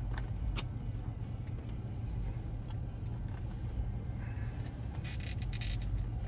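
Steady low hum of a car idling, heard inside the cabin. A few light clicks come within the first second and a cluster of clicks and rustles near the end, from a plastic spoon and sundae cup being handled.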